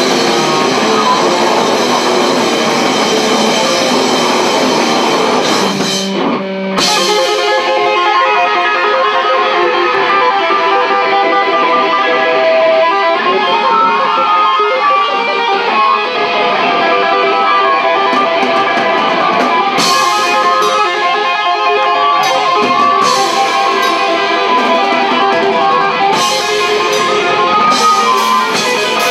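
Live metal band playing loud: distorted electric guitars, bass and drum kit, with a brief break in the playing about six seconds in.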